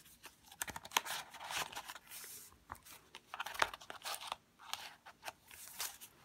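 Paper pages of a handmade junk journal being turned and handled: irregular rustling and crinkling with many short, sharp flaps and clicks.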